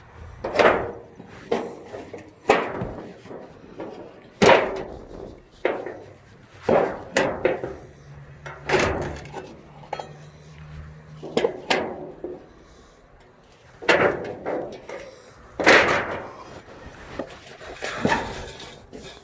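Irregular knocks and clanks from an old shed being torn apart by hand, about a dozen sharp blows spaced unevenly, some ringing like metal.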